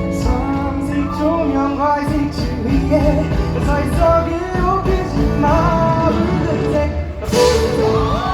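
Live band music with a male singer's voice over it, the sung melody bending and gliding.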